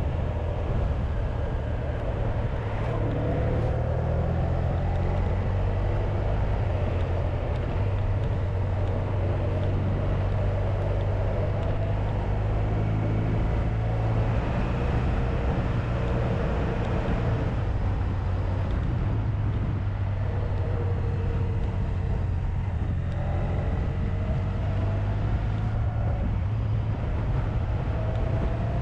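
Honda VFR1200X Crosstourer's V4 engine running on the move, its note rising and falling as the revs change, over steady wind and road noise.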